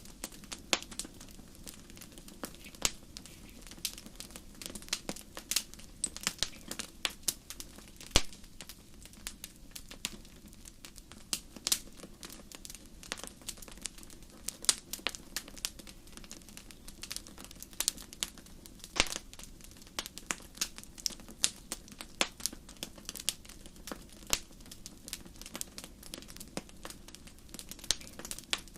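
Campfire of burning wood crackling: irregular sharp pops and snaps, several a second, over a low steady rush of the flames, with a few louder pops.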